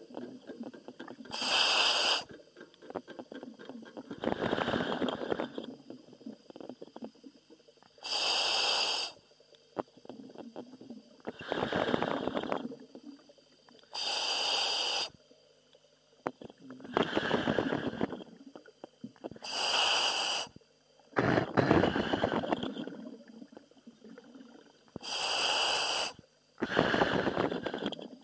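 A commercial diver breathing inside a surface-supplied diving helmet, heard over the diver's communication line. Slow, regular breaths alternate between a high hiss from the helmet's air supply and a lower rushing exhale, about five full breaths in all.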